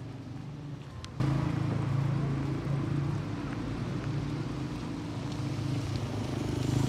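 A quiet street, then about a second in a motor vehicle's engine comes in, running steadily with a low hum over road and wind noise.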